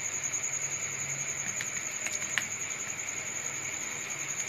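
Steady high-pitched whine over a low hum, with a couple of faint clicks about two seconds in.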